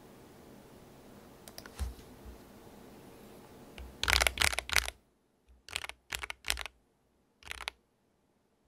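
Keychron K6 mechanical keyboard with Akko CS Jelly Black linear switches being typed on. A few faint key clicks come first. A quick run of loud keystrokes follows about four seconds in, then two shorter bursts of keystrokes, and then the typing stops.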